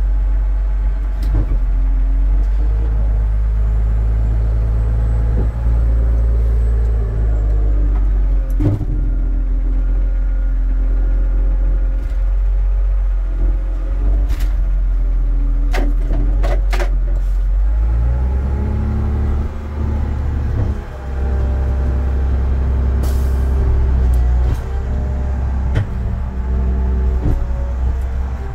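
Stinger Stacker 8500 bale stacker's engine running steadily, heard from inside its cab as a loud low drone, with a few sharp clicks and knocks in the middle. The engine note shifts about two-thirds of the way through.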